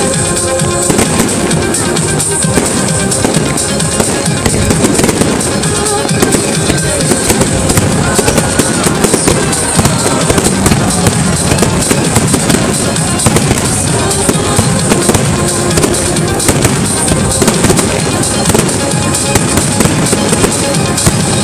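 Fireworks display: a continuous barrage of aerial shells bursting, with dense bangs and crackling and no letup, over music playing alongside.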